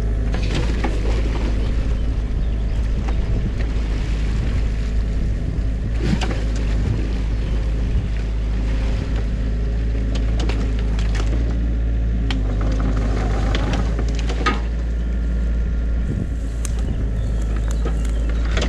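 New Holland mini excavator's diesel engine running steadily under load while its bucket digs through a beaver dam in the stream. Sharp knocks and cracks of sticks and branches break in now and then, the loudest about two-thirds of the way through.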